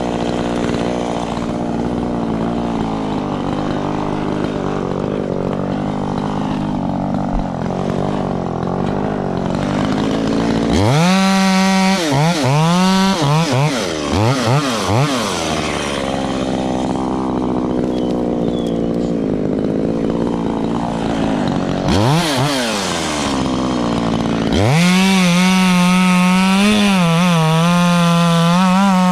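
Echo CS-3510 two-stroke chainsaw cutting tree branches. The engine runs steadily under load, then is revved up and down sharply several times, and is held at high revs with small dips near the end.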